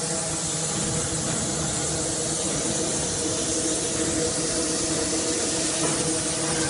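Steady hiss over a low, even machine hum from running workshop machinery.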